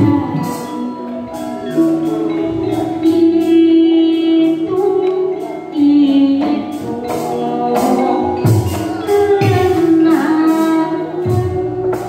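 Cirebon gamelan playing: the bonang's bronze kettle gongs and other struck percussion in a steady pulse, under a singer's long held, melismatic vocal line.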